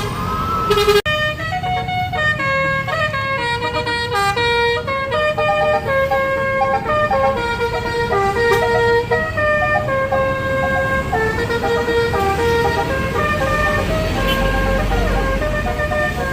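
Basuri telolet multi-tone air horn on a tour bus playing a tune, note after note in quick steps, over a low rumble of engine and traffic.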